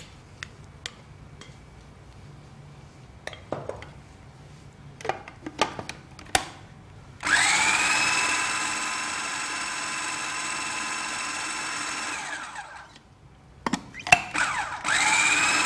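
Electric food processor grinding a thick haleem paste of lentils and grain. A few light knocks and scrapes come first as the mix is tipped into the bowl. About seven seconds in the motor starts, spins up and runs steadily for about five seconds, then winds down, and near the end it is run again briefly.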